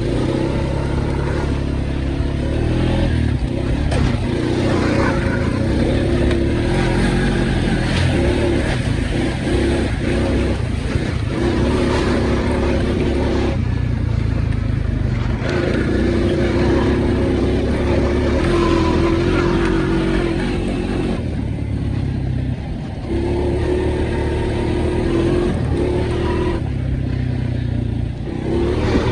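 Honda Rancher 420 four-wheeler's engine running hard under throttle, easing off three times for a second or two and then pulling again.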